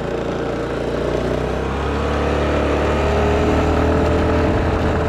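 Honda Activa 5G's 110cc air-cooled four-stroke single-cylinder engine pulling the scooter away from low speed, its note rising and growing louder over the first few seconds, then holding steady.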